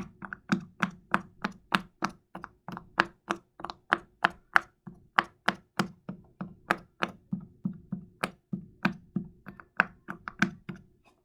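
Silicone pop-it fidget toy being popped bubble by bubble with the fingertips: a steady run of soft pops, about four a second.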